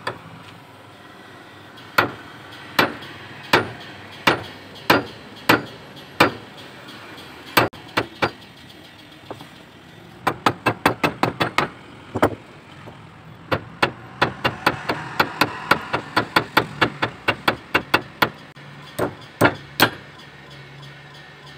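Steel chopper blade striking a steel nail clamped in a bench vise in a hardness test of the edge. The metal strikes are sharp and ring briefly, spaced about a second apart at first, then come in fast runs of several a second.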